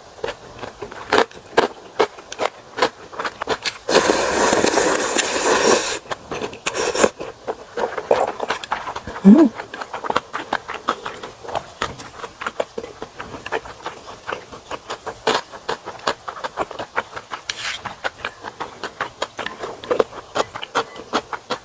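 A person eating ramen close to the microphone: a long slurp of noodles about four seconds in, and wet chewing, lip smacks and utensil clicks for the rest.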